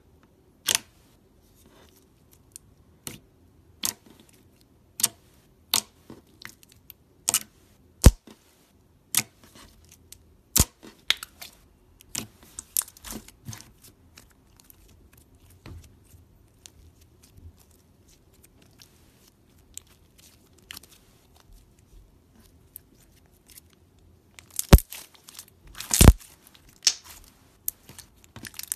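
Fingers poking, pressing and squeezing thick slime, making sharp wet clicks and pops as trapped air is squeezed out. The pops come about once a second at first, turn into a denser crackle for a couple of seconds, thin out, and end in a loud cluster of pops near the end.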